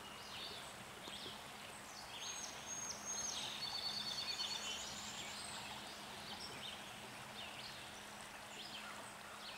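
Dawn chorus of several songbirds singing at once: chirps, quick trills and whistled notes, busiest a couple of seconds in, over a faint steady background hiss.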